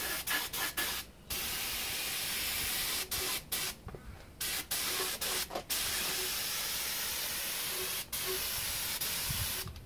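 Gravity-feed air spray gun hissing as it sprays etch primer, in long bursts broken by short pauses where the trigger is let go; the longest pause comes about four seconds in.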